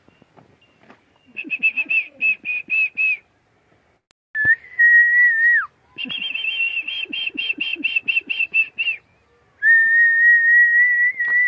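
A person whistling. Fast trilled whistles of about four pulses a second alternate with long, steady whistled notes that drop in pitch as they end.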